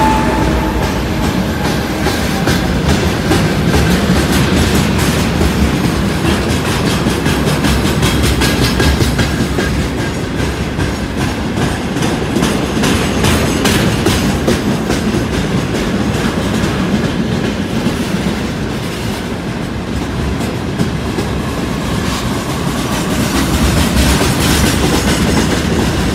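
Freight train of rail tank cars passing close by, wheels running with a continuous clickety-clack over the rail joints. In the first second the engine whine of the departing 2TE116U diesel locomotive fades out.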